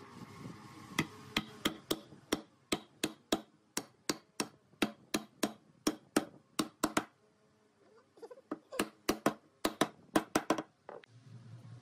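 A hammer striking the top wooden board to drive it down onto the glued edge and alignment pins of the board below: a run of sharp knocks about three a second, a short pause, then a quicker run of knocks.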